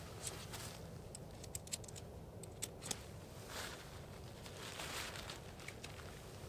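Faint light clicks and taps of a tent pole being handled and flexed into an arc, clustered in the first three seconds, followed by soft rustles of the tent fabric, over a low steady background rumble.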